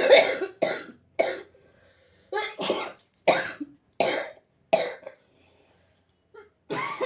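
A person with a head cold coughing in a run of about eight short coughs, with a pause before one more near the end.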